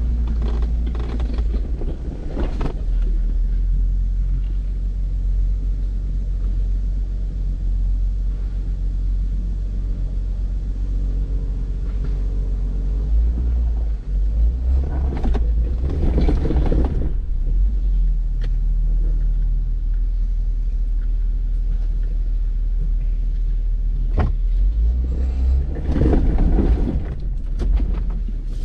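Off-road vehicle's engine running with a steady deep rumble, rising in two louder surges of throttle, about halfway through and again near the end.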